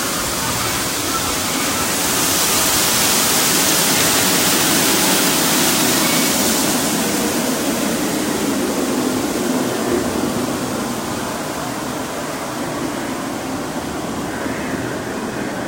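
Steady rushing of falling water from the ride's rainforest water effect. It grows louder about two seconds in and eases off over the second half as it fades behind.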